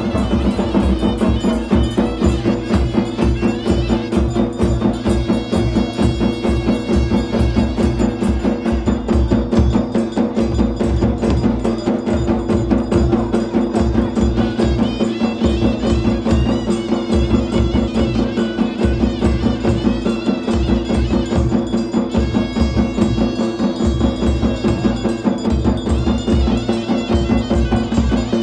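Traditional folk music: fast, steady drumming under long held tones, going on without a break.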